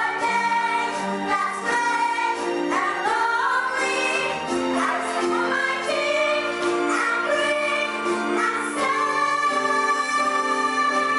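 Music with a group of voices singing together, choir-style.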